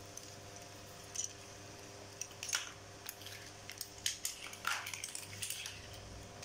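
Scattered light clicks and clatters of plastic building-block toys being handled, over a steady low hum.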